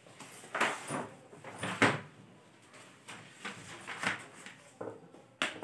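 A large paper wall map being handled and rolled up: irregular rustling and crackling in short bursts, the loudest a little under two seconds in.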